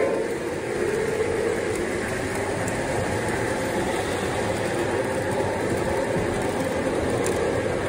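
Lionel O-gauge model train freight cars rolling past on the track, a steady rumble of wheels on the rails.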